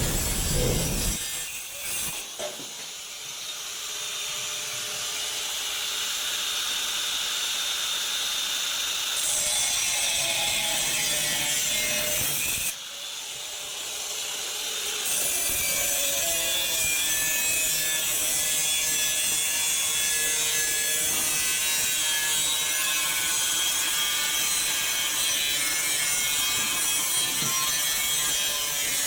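Angle grinder cutting into sheet-metal cable tray: a steady, high-pitched grinding with a whining tone. It drops off sharply about thirteen seconds in and builds back up.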